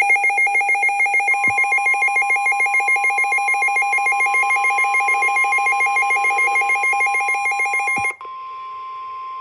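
Midland weather alert radio's alarm beeping rapidly, about five pulses a second, as a severe thunderstorm warning comes in. About a second in, the steady NOAA Weather Radio warning tone joins it. The alarm cuts off with a click about eight seconds in, leaving the steady tone.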